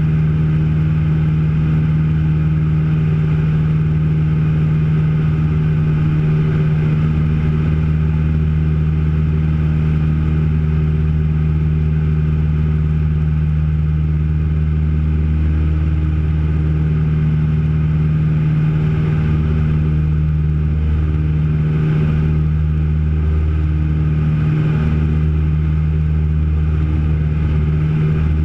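Piper PA-30 Twin Comanche's two four-cylinder Lycoming piston engines and propellers droning steadily in flight, heard inside the cabin. The deepest tone wavers briefly a few times.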